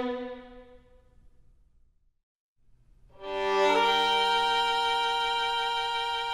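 Violin music: a held note fades away, a short silence follows, then a new slow violin passage with long held notes begins about three seconds in.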